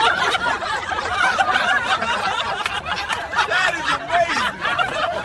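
Several people snickering and laughing at once, a dense overlapping mix of laughter.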